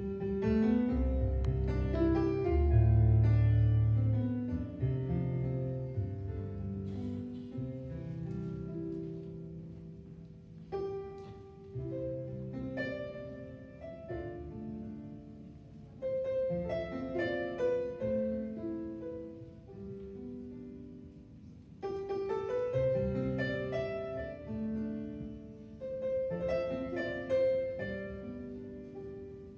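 Live instrumental music: a harp and an electric keyboard playing an Irish air, plucked notes left to ring over low bass notes, in phrases with short breaks between them.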